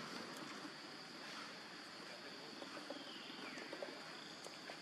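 A faint, steady, high-pitched insect drone. About three seconds in, a brief faint falling call sounds over it.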